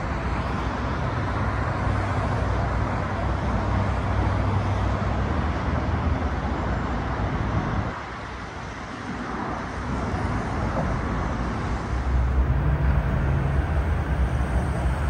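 Road traffic passing close by: a steady wash of tyre and engine noise, dipping briefly about eight seconds in and swelling with a deeper rumble near the end as a heavier vehicle goes past.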